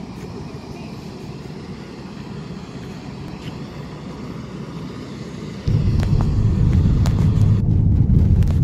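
Steady outdoor rumble on an airport apron, then about two-thirds of the way in a sudden change to a much louder low rumble of a car driving, heard from inside the cabin, with a few light ticks near the end.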